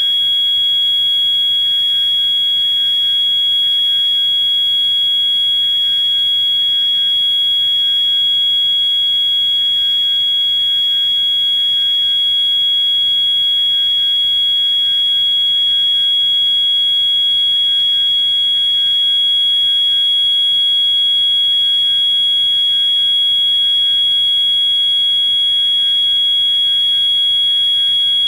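Edwards (EST) 692-7A-HSR fire alarm sounding a continuous, piercing high-pitched tone, with other EST fire alarm horns faintly pulsing beneath it.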